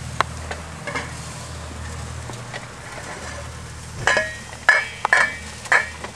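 Steak sizzling on a gas grill with a steady hiss. From about four seconds in, a utensil clinks and scrapes against a bowl of mushrooms, onions and green peppers being stirred, about six ringing clinks.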